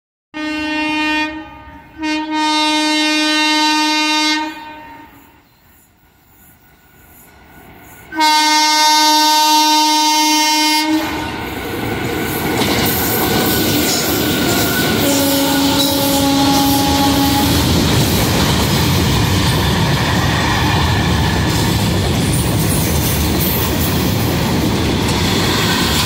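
Twin Indian Railways WAG-5 electric freight locomotives sounding their air horns: two blasts close together near the start, then a longer blast about eight seconds in. From about eleven seconds in, the locomotives and freight wagons run past slowly, a steady noise of wheels on rails, with a fainter horn note partway through.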